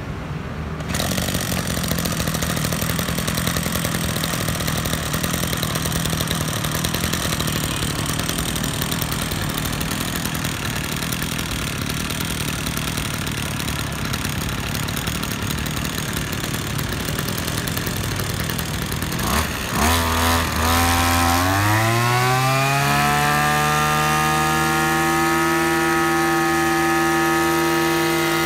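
Oshima VX330 brush cutter's two-stroke petrol engine running, first at a low steady speed. About two-thirds of the way in it is blipped and then throttled up, its pitch climbing over a couple of seconds to a steady high speed.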